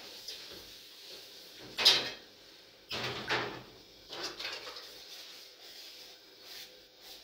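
Metal pans and bowls knocking and clanking against each other and the steel sink during hand dishwashing: a few separate clanks, the loudest about two seconds in.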